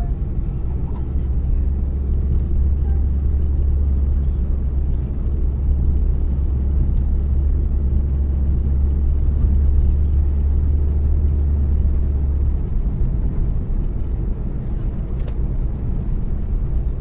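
Steady low rumble of a car driving, heard from inside the cabin: engine and road noise. The deep drone under it drops away about three-quarters of the way through.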